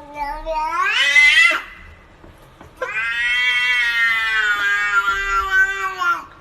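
A cat yowling: a long call that rises in pitch and breaks off about a second and a half in, then a longer yowl held for about three seconds, slowly falling in pitch.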